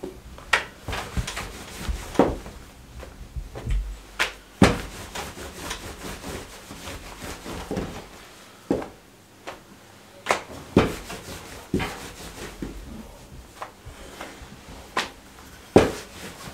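Wooden rolling pin rolling out samosa pastry on a wooden board, with irregular knocks about once a second as the pin and the dough sheets are set down and lifted.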